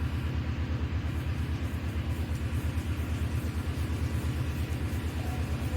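Hand rubbing powdered skin down the side of the neck in quick repeated strokes, heard as a low rumbling rub that swells about three to four times a second.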